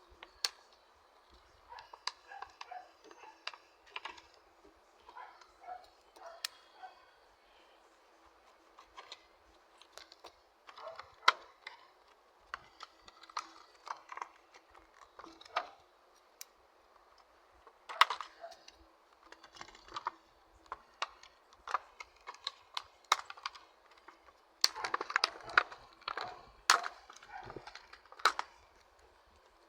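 Irregular plastic clicks, taps and crinkling as Gillette Mach3 Turbo razor cartridges and their blister packaging are handled, busiest near the end.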